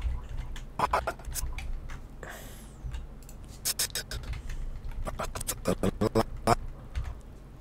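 Computer keyboard and mouse clicks in quick irregular clusters as shortcuts are pressed, with a short breathy hiss a little over two seconds in, over a faint steady hum.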